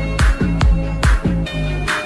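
Electronic dance music with a steady drum beat: a repeated deep kick drum with a clap or snare on top and sustained synth tones.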